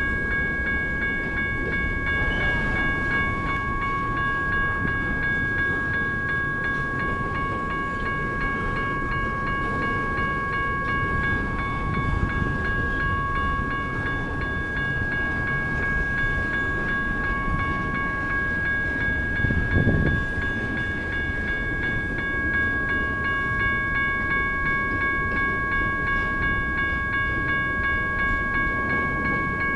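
A General Signals type 1 electronic crossing bell rings on without a break, over the steady rumble of intermodal freight cars loaded with truck trailers rolling past. There is one louder thump about twenty seconds in.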